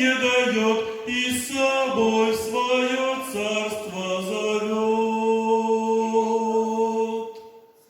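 Singing of the final line of a Russian Christian song, ending on one long held note that fades out about seven seconds in.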